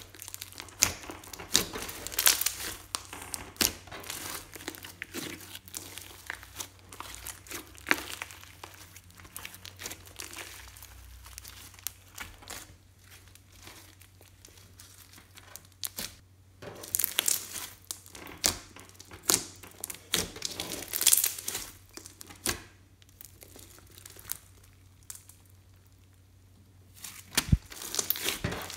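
Hands squishing, squeezing and pressing glossy slime mixed with makeup and glitter, giving irregular wet crackles and pops, with a couple of quieter pauses while the slime is left alone.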